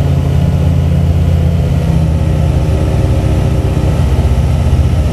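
Savage ultralight taildragger's piston engine and propeller running steadily in flight, heard from inside the cockpit as a loud, even drone; the note changes slightly about two seconds in.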